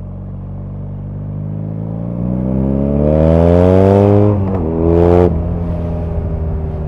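BMW R nineT's air/oil-cooled boxer twin, heard from the rider's seat, running steadily and then revving up hard under acceleration. There is a quick upshift about four and a half seconds in, and a second later the revs drop again and the engine settles to a steadier, quieter run.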